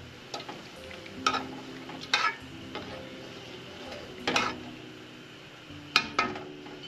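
A long metal spoon stirring liquid stew in an aluminium pot, knocking and scraping against the pot's side about five times.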